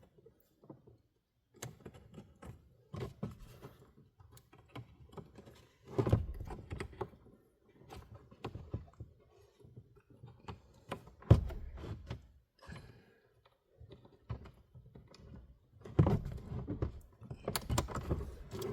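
Handling noise of a car's plastic glove box and the wiring of its light: scattered clicks, rattles and knocks, with one sharp knock about eleven seconds in.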